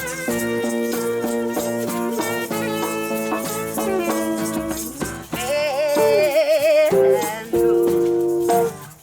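Music: a shaker rattling over melodic instruments playing held notes, with a wavering, vibrato-laden note from about halfway through to past six seconds.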